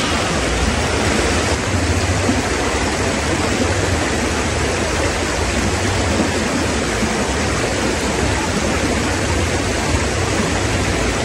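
Shallow stony river flowing steadily, a constant rush of water.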